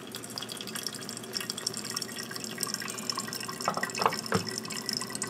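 Hot water poured from a glass electric kettle into a ceramic Melitta pour-over cone, with coffee trickling and dripping into the glass carafe below. A few light clinks come about four seconds in.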